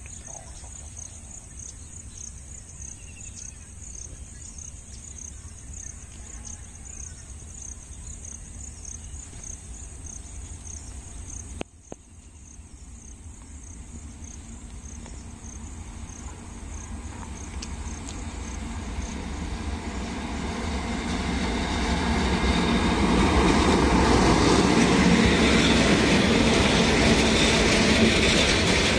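Coal-loaded freight train behind two WAG-7 electric locomotives approaching, growing steadily louder from about halfway in to a loud rumble near the end as the locomotives draw alongside. Before it, a low steady rumble and insects chirping in an even pulse.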